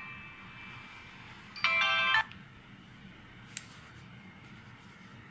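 Electronic beeping tones in a short melody: a tune fades out at the start, then a loud half-second burst of several stepped tones comes about a second and a half in. A single sharp click follows a couple of seconds later.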